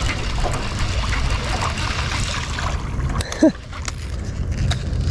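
Water splashing and trickling around a jon boat over a steady low rumble of wind, with scattered small knocks. About three and a half seconds in, one short sound falls in pitch and is the loudest moment.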